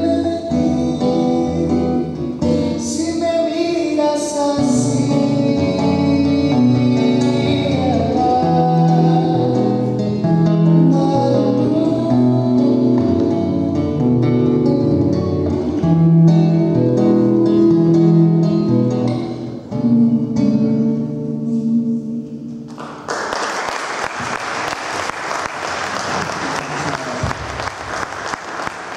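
A male singer singing to his own acoustic guitar. The song ends about 23 seconds in and an audience applauds.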